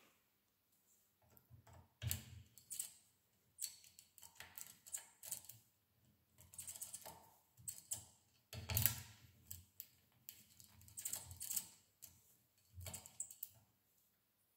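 Light metallic clicks and rattles of a small hand tool being worked in a metal jig clamped in a vise, coming in irregular bursts, loudest about two seconds in and again near nine seconds.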